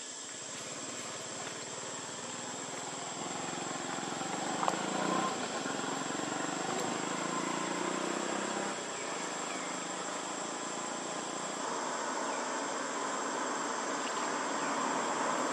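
Steady outdoor insect drone, a thin high-pitched whine, over a broad hiss that slowly grows louder, with a single click about five seconds in.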